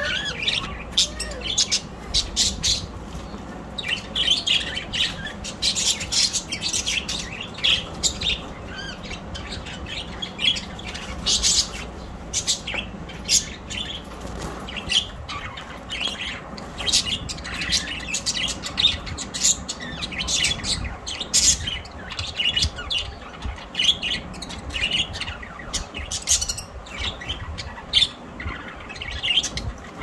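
A flock of budgerigars chattering, many short high calls overlapping without a break.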